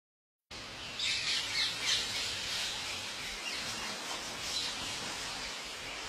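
A flock of parrots calling, with many short, high, overlapping calls, some sliding down in pitch. The calls are thickest about one to two seconds in, over a steady outdoor hiss.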